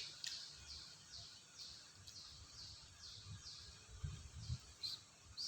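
Faint chirping from a bird: a short falling chirp repeated about twice a second. A few soft low thumps come about four seconds in.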